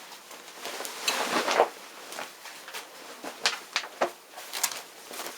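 Handling noises of denim jeans being moved and smoothed: cloth rustling with light knocks and clicks, and a louder rustle about a second in.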